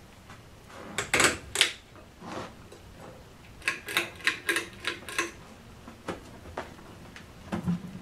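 Pull-chain switches on a Hampton Bay Gazebo ceiling fan being clicked. There are two loud clicks about a second in, a quick run of about six clicks around four to five seconds in, and a few scattered clicks after. A low motor hum comes up near the end as the fan starts turning.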